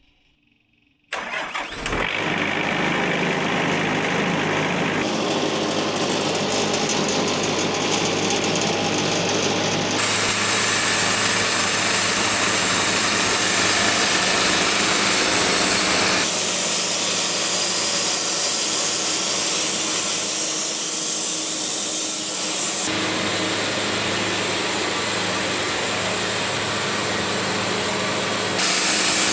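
Portable sawmill's engine starting suddenly about a second in, then running steadily, its tone shifting abruptly several times.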